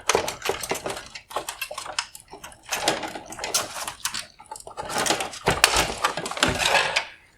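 Hard plastic parts of an Alfa Romeo Giulia xenon headlight being handled: a busy run of clicks, knocks and scraping as the front bezel is worked loose from the housing, busiest about five to seven seconds in.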